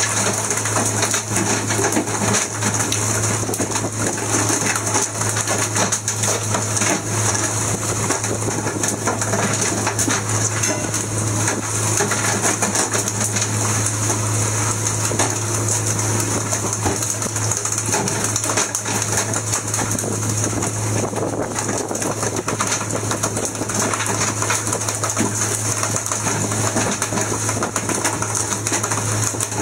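Fishing boat's engine droning steadily under way, with a constant rattle of fittings and the rush of water and wind over the hull.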